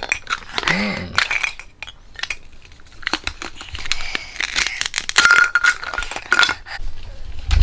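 Toy food pieces and play dishes clattering and clinking as they are handled and set on a toy plate, a run of quick, irregular knocks.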